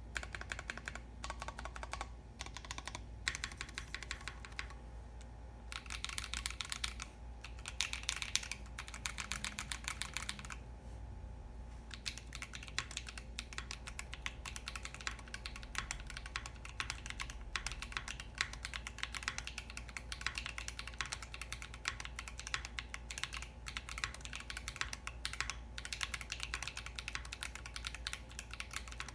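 Typing on a 60% custom mechanical keyboard with lubed Akko Lavender switches, an FR4 flex-cut plate and black-on-white keycaps: a quick, steady run of keystroke clacks. It breaks for a few short pauses in the first dozen seconds, then goes on without stopping.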